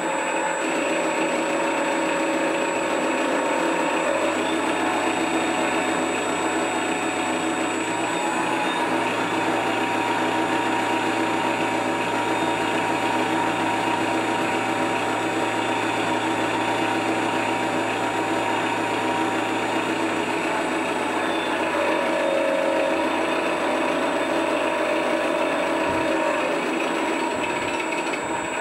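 Engine sound module in an RC Yak-12 model playing a simulated aircraft piston engine idling through its speaker, a steady mechanical running noise. The engine note shifts up in pitch about four seconds in and drops back down after about twenty seconds.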